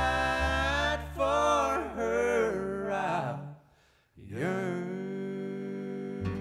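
Bluegrass background music: a sung song ends about three and a half seconds in, a brief gap follows, then the next tune starts with held instrument notes.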